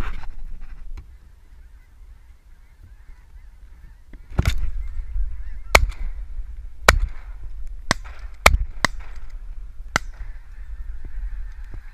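A large flock of snow geese honking overhead, with a volley of about six shotgun blasts fired up at them from about four and a half seconds in.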